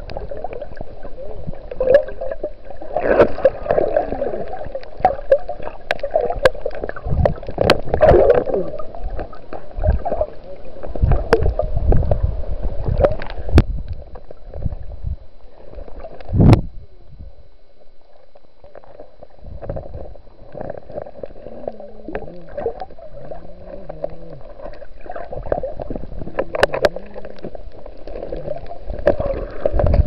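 Underwater sound picked up through a camera housing: muffled gurgling and bubbling that swells in bursts every few seconds, with scattered sharp clicks.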